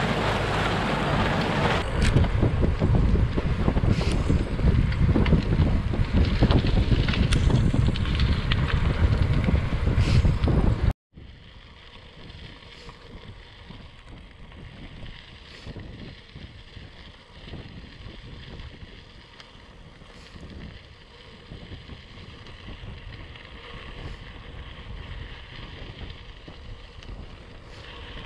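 Heavy wind buffeting the microphone of a camera moving with cyclists along a gravel road, cutting off abruptly about eleven seconds in. After that comes a much quieter steady hiss with faint held tones.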